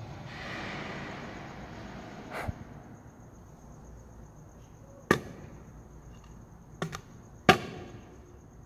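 Soft rustling noise, then a handful of sharp taps spread a second or two apart, the loudest about seven and a half seconds in.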